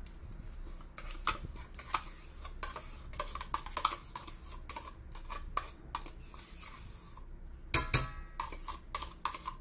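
Metal spoon scraping and clicking inside a plastic pudding cup as it is scooped out into a stainless steel bowl, in a run of short irregular taps. Near the end comes a louder clink of metal with a brief ring.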